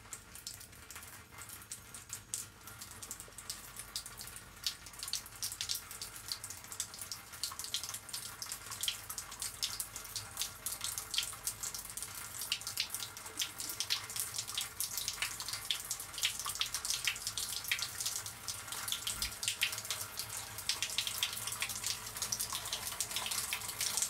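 Water trickling and spattering: a rapid, irregular patter of drips that grows denser, over a faint steady low hum.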